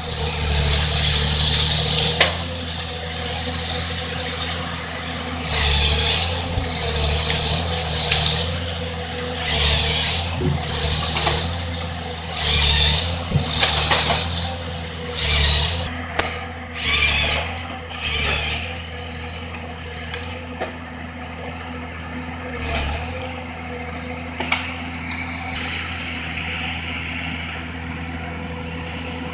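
Timberjack forestry harvester working: its diesel engine runs steadily, while the boom and harvester head's hydraulics load it in a string of short surges about a dozen times, then ease off to a steadier run near the end.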